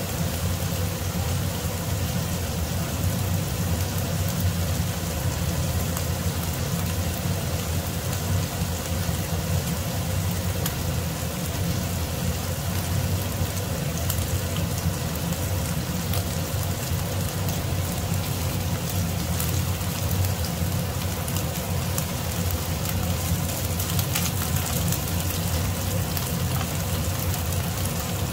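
Marinated beef slices sizzling and crackling in hot butter in a frying pan, steady throughout, with a constant low hum underneath.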